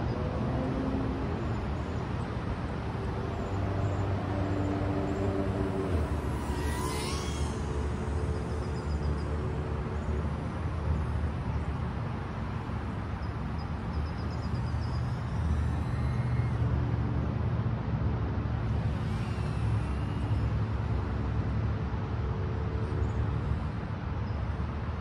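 Small FPV quad's RCInpower 1202.5 6000kV motors and propellers buzzing as it flies, with wind rushing over the onboard microphone. The pitch steps up and down with the throttle, and a high whistle slides down about seven seconds in.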